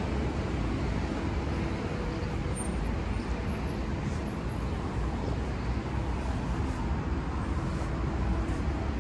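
Steady street traffic noise: the continuous rumble of cars running along a busy multi-lane city road.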